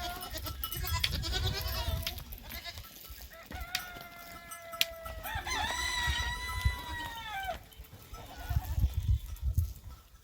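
A rooster crowing once: a long drawn-out call lasting about four seconds in the middle, stepping up in pitch partway through and dropping off at the end.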